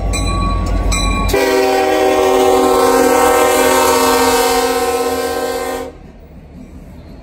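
Union Pacific 4141, an EMD SD70ACe diesel locomotive, passing close with its engine rumbling, then sounding its air horn: one long chord of several notes, starting about a second and a half in and lasting about four and a half seconds before cutting off sharply. A quieter rumble of the passing train follows.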